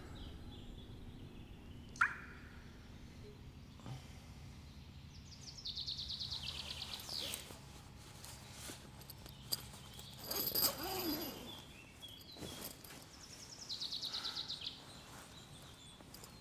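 Quiet outdoor ambience with a steady low hum, and two rapid, high bird trills. There is a sharp click about two seconds in, and a brief noisy sound just past the middle.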